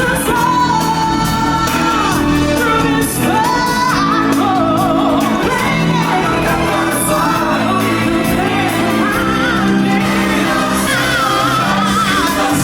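Live stage-show music: singers performing a song over a band backing track in a large hall, with some whooping from the crowd.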